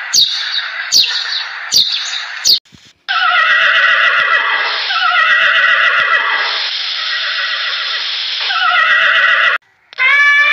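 House sparrows chirping in short sharp notes, then ponies whinnying in several long calls that fall in pitch, then an elephant trumpeting near the end.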